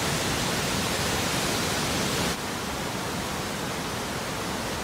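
Swollen floodwater rushing in a steady noise. About two seconds in it cuts to a slightly quieter rush of water.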